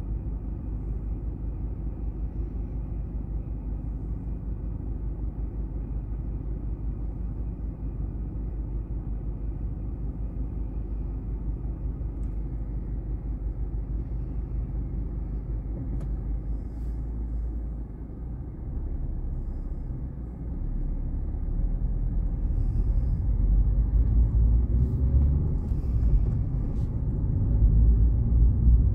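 Low rumble inside a car's cabin: the car sits idling, then pulls away and gathers speed, the rumble growing louder and rising over the last ten seconds or so.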